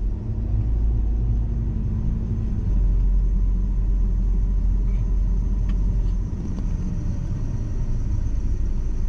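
Car driving, with a steady low rumble of engine and road noise and a few faint ticks midway.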